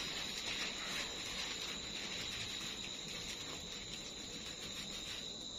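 A steady, high-pitched insect trill, with soft rustling and patter from a dry fish-bait mix of puffed and flattened rice, bran and spices being stirred by hand.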